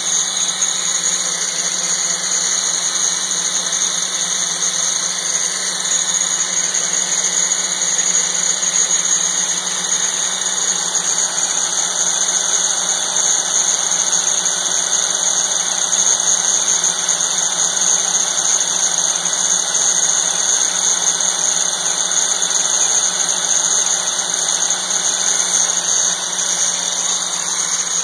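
DeWalt angle grinder running steadily at full speed, zip-tied to the cross slide of an Atlas mini lathe, its wheel surface-grinding the face of a hardened steel part turning in the lathe chuck, with the lathe's electric motor running underneath.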